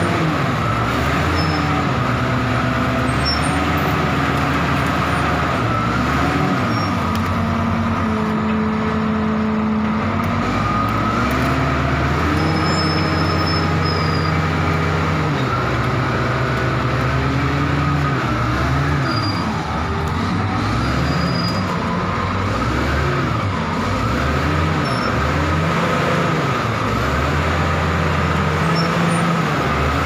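Komatsu D85ESS-2 crawler bulldozer's diesel engine working as the machine drives on its tracks, its pitch rising and falling again and again, with a steady high whine running over it.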